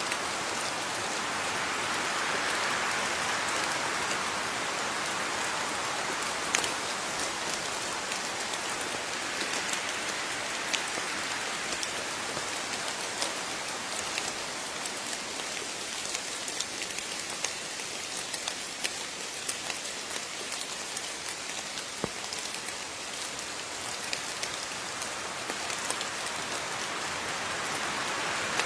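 Steady rain falling, with scattered louder individual drops ticking on a surface.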